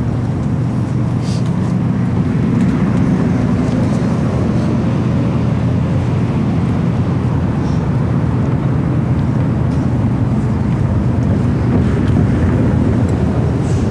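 Steady low rumble with a few fixed hum-like bands in it and only faint ticks above.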